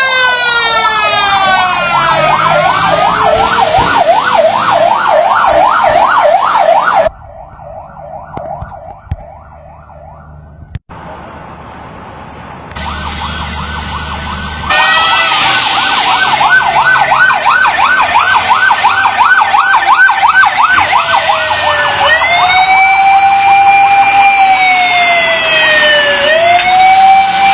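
Emergency-vehicle sirens sounding loudly, mostly in a fast yelp that rises and falls over and over. The yelp stops abruptly about seven seconds in and comes back several seconds later. It changes to a slower wail, long rises and falls, for the last few seconds.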